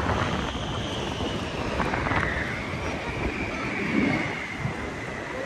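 Inflatable snow raft sliding over packed snow: a steady rumbling hiss, with wind on the microphone.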